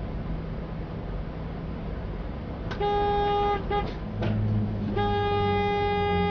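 Vehicle horn honking over steady highway road noise: one blast of almost a second about three seconds in, a quick short toot, then a long blast from about five seconds in.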